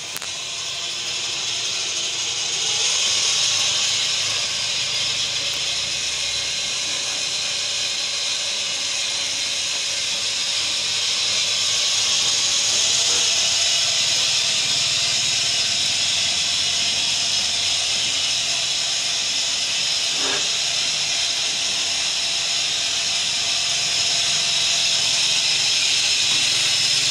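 Sugarcane bud cutting machine (Quantum Innovations RYA 20) running: a steady, high, even whir from its motor and drive, with a faint tone underneath that shifts in pitch partway through.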